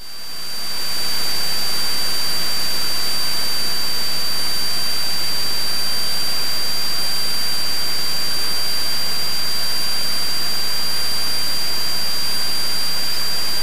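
Steady static hiss with a constant high-pitched whine on the cockpit's radio and intercom audio, swelling in over about the first second and then holding even.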